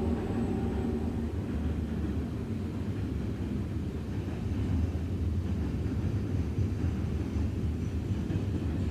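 Low steady rumble, with a held tone that fades out about a second in.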